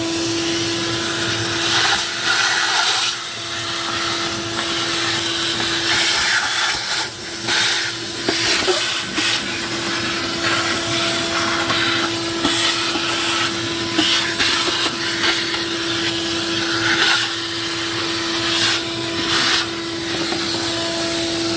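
A vacuum cleaner running steadily: an even motor hum under loud rushing suction that swells and dips as the nozzle works over a dirty part.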